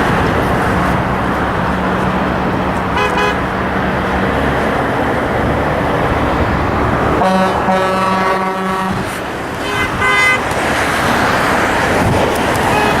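Steady freeway traffic with passing vehicles honking their horns: a short honk about three seconds in, a long honk of nearly two seconds past the middle, and a couple of quick honks about ten seconds in.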